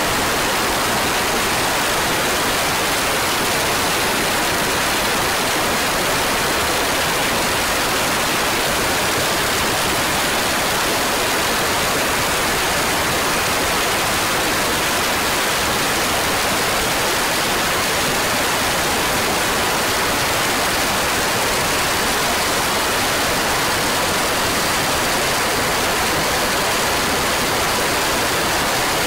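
Steady rushing wind noise on the onboard camera of a kart running at speed, with a faint steady whine underneath.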